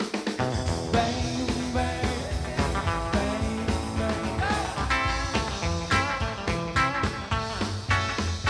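Rock-and-roll band playing an instrumental passage: electric guitar lead with bent notes over bass and drums.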